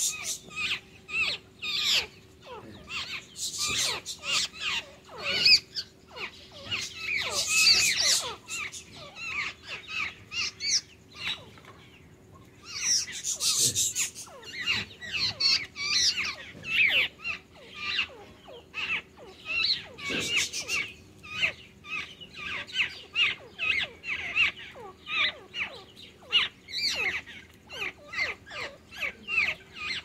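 A small flock of songbirds chattering with rapid, harsh, squeaky calls in dense runs, with a brief lull near the middle, as the birds on the ground feed one another. A faint steady hum lies underneath.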